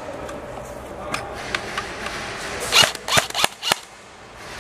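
Airsoft guns firing: a few faint sharp snaps, then a loud cluster of four quick cracks about three seconds in.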